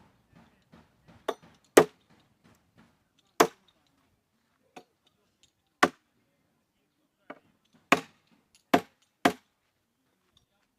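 A tool striking wood in sharp, separate blows, about eight loud strikes at uneven intervals with fainter knocks between, as a wooden table is being built.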